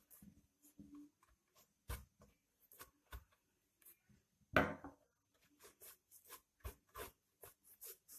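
Thin paintbrush stroking and dabbing paint onto a box, with faint scattered taps and rubs and one louder scrape a little past halfway.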